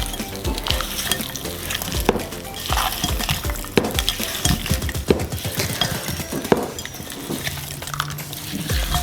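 Boiled potatoes being stirred in a pan, a spoon scraping and clinking against the metal many times over a sizzle of hot spiced mustard-oil tempering.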